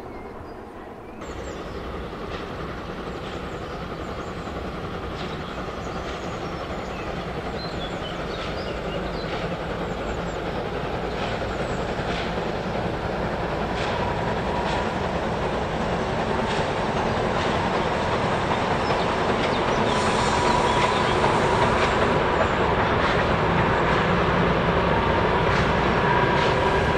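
Steam locomotive 97 501 hauling a passenger train, faint at first, then louder from about a second in and growing steadily as it approaches. The wheels click over rail joints, and a faint steady squeal comes in about halfway.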